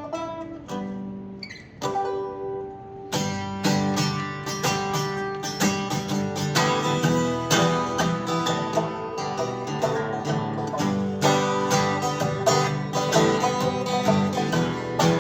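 An acoustic duo playing an original tune on plucked string instruments: a few sparse picked notes, then fuller, busier picking from about three seconds in.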